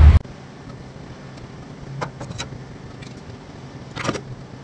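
Diesel pump nozzle handled at a semi truck's fuel tank: a few sharp metallic clicks about two seconds in and a knock near four seconds, over a steady low hum. A brief blast of wind noise cuts off at the very start.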